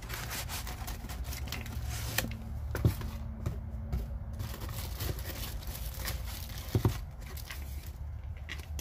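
Cardboard tool box and its cardboard insert being handled and pulled apart, with rustling and crinkling of packaging and many small clicks. Two sharp knocks stand out, about three seconds in and near seven seconds.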